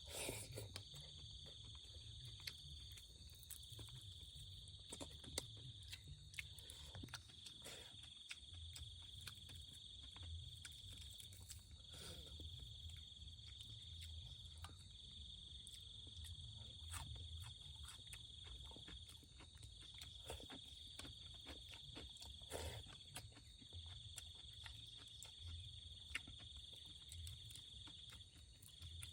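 Insects trilling in a faint, steady, high-pitched chorus that breaks off briefly every two to three seconds, with scattered faint clicks and knocks.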